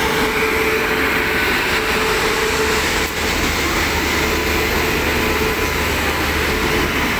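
Electric-hauled passenger train pulling out of the station: a steady running noise with a held hum from the locomotive that fades out for a while partway through.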